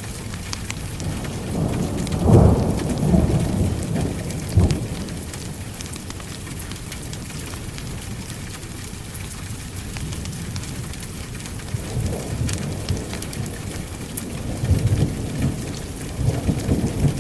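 Steady rain with thunder rumbling low, swelling about two seconds in and again over the last few seconds. Thin sharp ticks are scattered through the rain.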